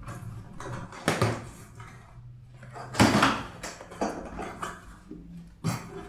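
A shipping package being handled and opened: rustling with several sharp knocks and scrapes, the loudest about three seconds in, over a low steady hum.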